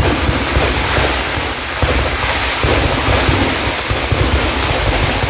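A dense barrage of firecrackers going off in very rapid succession, the bangs merging into one continuous crackling din with heavy bass: a ground-level fireworks display at a Kerala temple festival.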